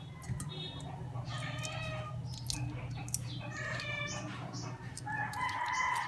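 Roosters crowing in the background: drawn-out calls about two seconds in, about four seconds in and again near the end, over a low steady hum with scattered small clicks.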